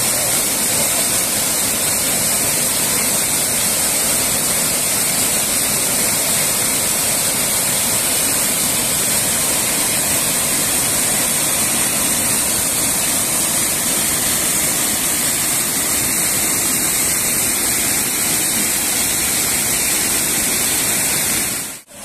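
Small rocky waterfall, water rushing and splashing over boulders into a pool, close by: a loud, steady rush.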